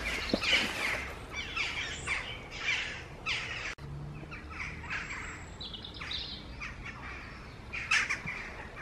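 Several songbirds chirping and calling in a steady stream of short, falling calls, with a brief break a little before four seconds in.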